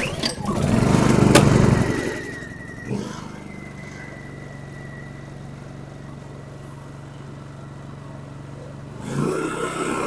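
Honda EB2200i inverter generator pull-started on choke, catching at once and running fast and loud for about two seconds before settling to a steady idle with a faint high whine; near the end the engine speeds up again. It fires up now that the water has been flushed out of its fuel lines and carburetor.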